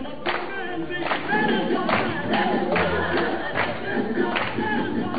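Music: a group of voices singing to steady hand clapping, a clap a little more often than once a second.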